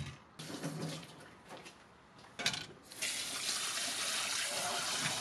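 Tap water running into a stainless steel bowl of shelled cockles in the sink as they are rinsed. It comes first in a few short bursts, then from about three seconds in as a steady stream.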